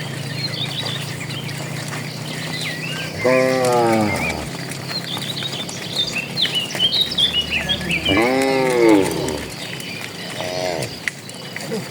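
Cattle mooing: two long calls that rise and fall in pitch, about 3 and 8 seconds in, and a shorter one near the end, with birds chirping throughout.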